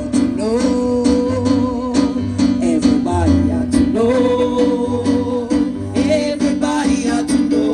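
Gospel music: a singer holding long notes that slide in pitch, over instrumental accompaniment with a steady beat.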